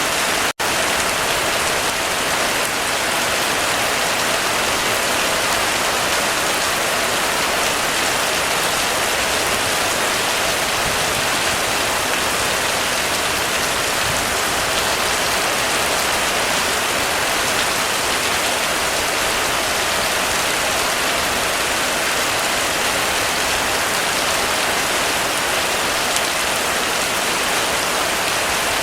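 Heavy rain pattering steadily on a roof, a dense even hiss of drops, with a momentary dropout in the sound about half a second in.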